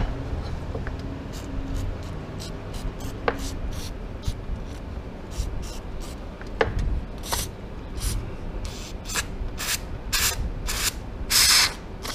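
Aerosol brake parts cleaner sprayed in about twenty short hisses through a straw nozzle onto a motorcycle brake caliper, roughly two a second, with a couple of longer sprays near the end.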